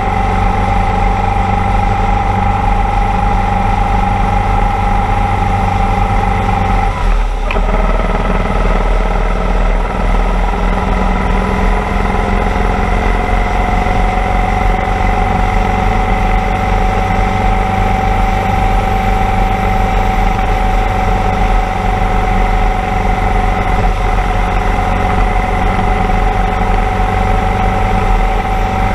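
Motorcycle engine running steadily at cruising speed, with wind noise rushing over the microphone. About seven seconds in the engine note drops briefly, then climbs slowly back.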